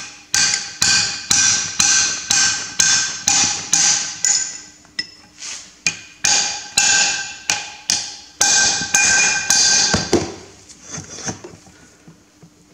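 Hammer blows on a cold chisel driven into the steel bearing locking collar of a Massey Ferguson 135 rear axle shaft, splitting the drilled collar so it can come off the shaft. About two ringing metal strikes a second keep on for about ten seconds, then stop.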